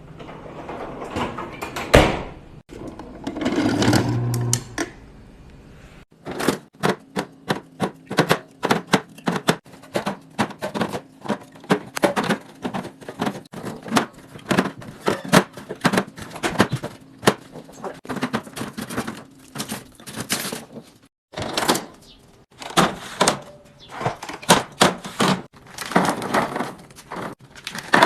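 Rapid, irregular clicks and clacks of hard containers and packaging being handled and set down while restocking a fridge.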